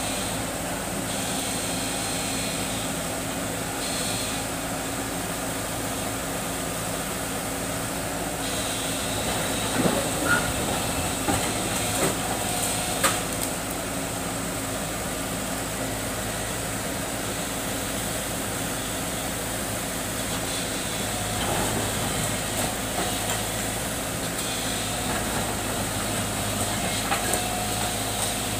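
Tracked JCB excavator's diesel engine running steadily under load as the machine works, with a few sharp knocks partway through.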